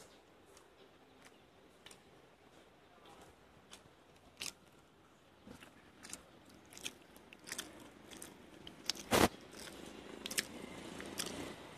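Sparse light clicks and taps of close handling, with one loud knock about nine seconds in. A low background noise grows louder near the end.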